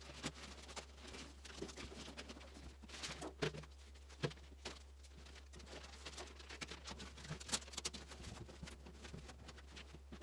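Faint, irregular clicks and light knocks of sheet-metal furnace duct pipe being handled and fitted together, over a steady low hum.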